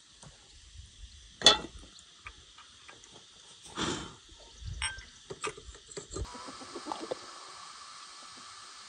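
Metal samovar set down on a wooden stump with one sharp knock, followed by scraping and several metallic clicks as it is handled. A steady faint hiss takes over near the end.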